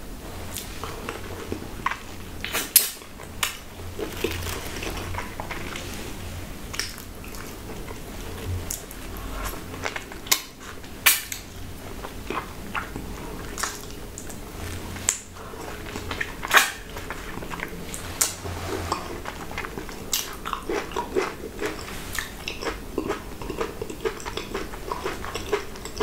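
Close-miked eating of a ripe mango: biting into the skin and chewing the soft, juicy flesh, with many sharp, wet mouth clicks at irregular intervals.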